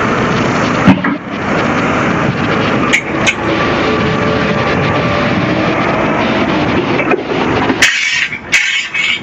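Concrete mixer pump's engine running steadily, with a few sharp knocks. Near the end the low engine sound drops away and two short hisses come through.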